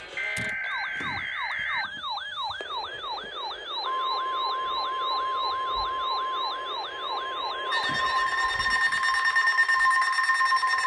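Etón Zoneguard weather alert radio sounding its siren-like alarm, set off by a Required Weekly Test: a quickly falling whoop that repeats about three times a second. A steady high tone joins about four seconds in, and a harsher, buzzing layer builds near the end.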